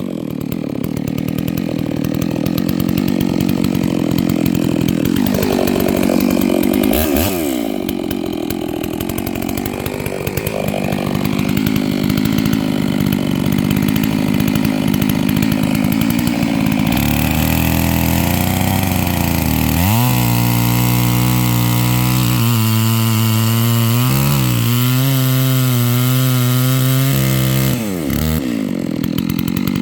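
Hanakawa 660 two-stroke chainsaw running hard in a cut, its pitch dipping briefly a few times as it loads. About halfway through it settles to lower, wavering revs, then speeds up again near the end.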